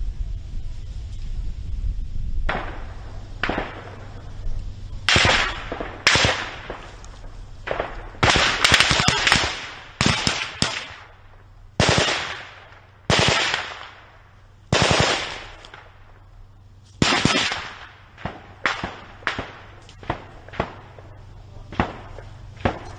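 Small-arms gunfire: irregular rifle shots and short bursts, beginning about two and a half seconds in and quickest around eight to nine seconds in, each shot trailing off in an echo.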